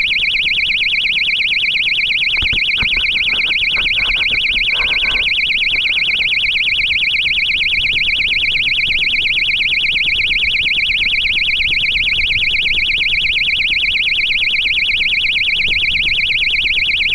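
Electronic buzzer on board a model rocket, sounding a loud, continuous high-pitched warbling tone right next to the microphone. A few knocks come between about two and five seconds in.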